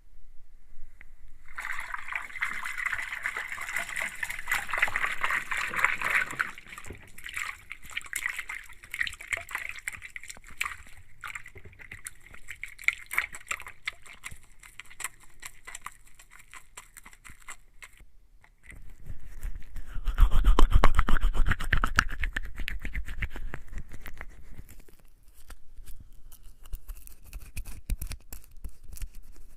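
Wet hands rubbing together with bar-soap lather, a dense squelching crackle that thins after a few seconds. About two-thirds of the way through, a louder, fuller rush of water starts, like a tap running over the hands for rinsing, then tapers off.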